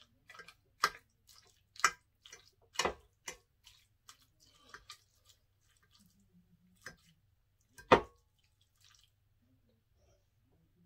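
Metal fork clinking and scraping against a clear serving platter as food is scooped up. There is a string of sharp taps in the first few seconds, a few lighter ones after, and one loud clink about eight seconds in.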